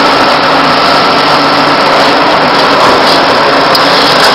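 Loud, steady roar of a commercial kitchen's gas burner and extraction, with light scrapes of a metal spatula against an iron kadai as thick gravy is stirred.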